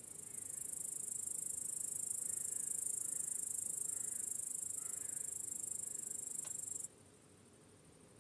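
Crickets trilling: a steady, very high-pitched, rapidly pulsing trill that swells in at the start and stops abruptly about seven seconds in.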